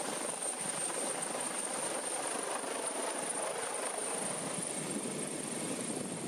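Steady helicopter noise: even rotor and engine rush with a thin high whine over it.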